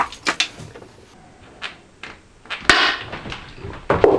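Sharp electrical snap about two-thirds of the way in, followed by about half a second of crackling hiss, as a battery cable is connected to a Victron EasySolar inverter/charger with everything switched off. This is the spark of inrush current into the unit's capacitors. Light clicks and knocks of the cable and terminal being handled come before and after it.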